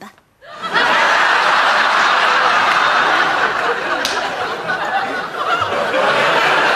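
Live studio audience laughing loudly at a sitcom punchline, breaking out after a brief hush well under a second in and keeping up strongly.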